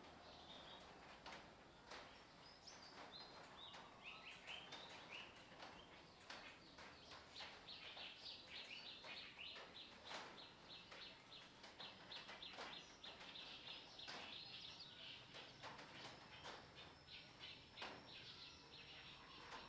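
Faint background chirping: quick trains of high chirps, busiest in the middle, with a thin steady high tone coming in about three-quarters of the way through.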